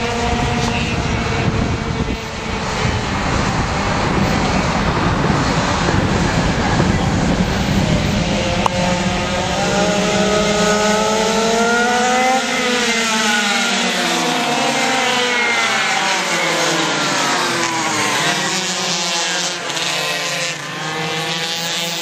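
Several racing pocket bikes' small two-stroke engines running at high revs, the overlapping pitches rising and falling as the bikes take corners and pass by.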